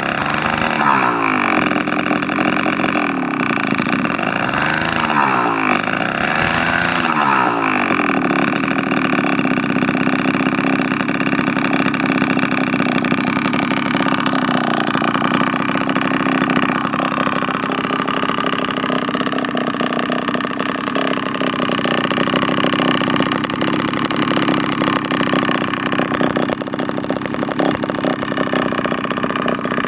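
Mini two-stroke engine built from a refrigerator compressor, revved up and down about four times, then running steadily at a fast, even speed.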